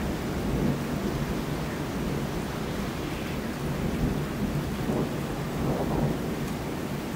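Thunder rumbling steadily and low, with rain falling throughout.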